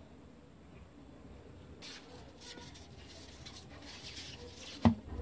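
Bearded dragon's claws scratching and scrabbling against a wall as it tries to climb, in a run of short scratchy strokes. A single sharp thump near the end.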